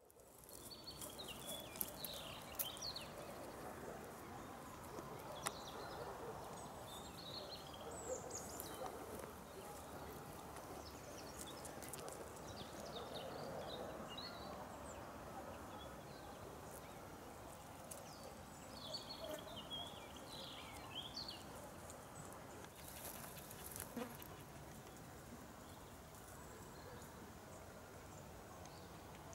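Faint open-field ambience with other dogs barking in the distance now and then, scattered short high chirps and a few sharp clicks.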